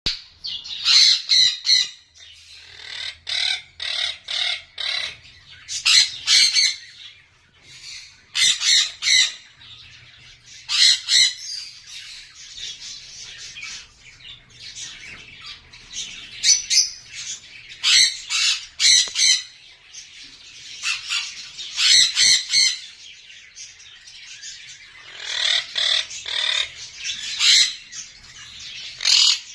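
Lovebirds squawking: loud, shrill bursts of rapid calls every couple of seconds, with softer chattering between them.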